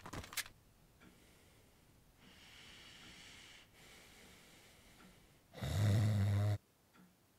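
A man snoring in his sleep: two soft breaths, then one loud, low snore about a second long near the end.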